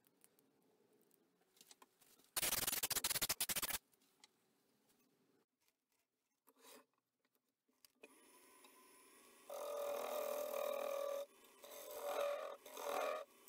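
A short, loud hiss about two and a half seconds in. Later a wood lathe runs with a steady hum, and a bowl gouge cuts the spinning yew bowl in bursts, the longest cut ringing with a steady tone.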